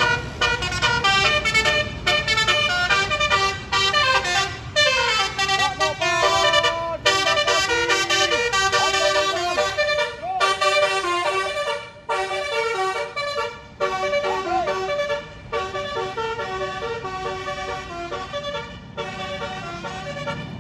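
Tour coach's basuri multi-tone musical horn ('telolet') playing a melody, one note quickly following the next, with a falling slide about five seconds in.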